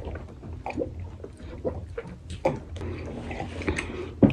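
Chewing and wet mouth sounds of someone eating, with scattered short clicks and smacks over a low steady hum; a sharper click comes near the end.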